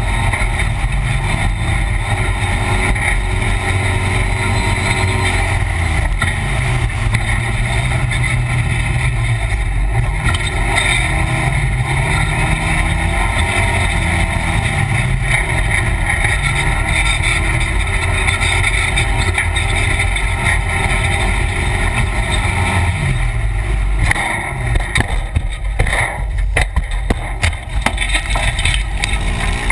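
Polaris RZR side-by-side's engine running hard under racing load, heard from inside the open cab, its pitch rising and falling with the throttle. In the last few seconds the engine note breaks up among knocks and rattles as the machine goes airborne off a jump and starts to crash.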